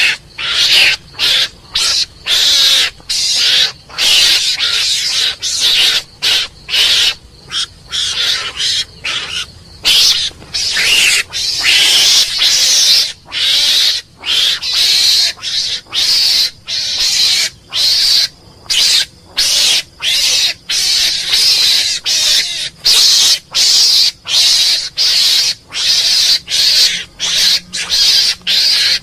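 Recorded mongoose calls, the Hawaiian (small Indian) mongoose call used to lure mongooses to a trap: a long, unbroken run of short, harsh, high calls, about one and a half a second, each broken off by a brief gap.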